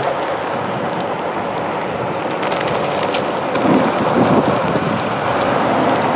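Onewheel Pint electric board being ridden over pavement: a steady rush of tyre rolling noise and wind over the microphone, with a few light ticks and a heavier rumble for about a second near the middle.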